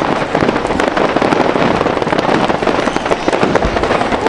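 Fireworks going off in a dense, unbroken barrage of rapid crackling pops.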